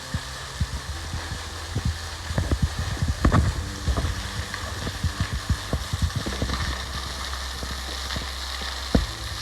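Waterfall's falling water hissing steadily, with scattered knocks and taps over it, the loudest about three seconds in.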